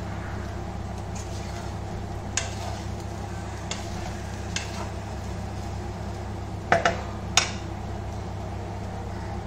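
Wooden spatula stirring rice in a wok, with sharp knocks and scrapes against the pan, the loudest three in quick succession about seven seconds in. A steady low mechanical hum runs underneath.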